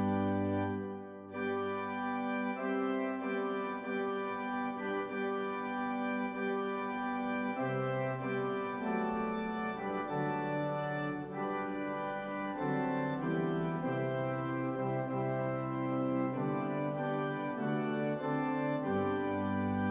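Organ music: slow, sustained chords that change every second or two, with a brief dip about a second in.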